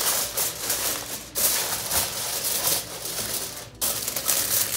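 Aluminum foil crinkling and rustling as it is pressed by hand into a cardboard box, in irregular bursts with two brief pauses.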